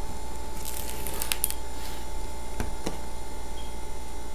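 A picture book being handled and turned over by hand: a short paper rustle about a second in, then two light knocks a moment apart, over a steady electrical hum.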